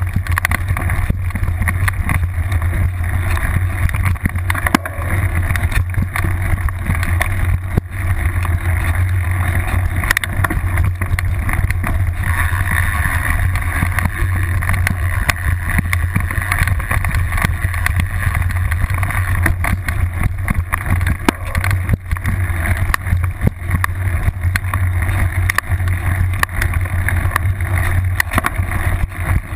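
Mountain bike ridden over a rough grassy trail, heard through a camera clamped to its seat post: a steady low rumble of tyre and frame vibration, broken by frequent knocks and rattles from bumps.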